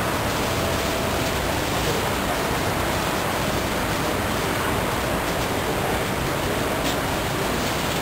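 Steady rushing wind noise on the camcorder microphone, high up on an exposed skyscraper top, with no change in level.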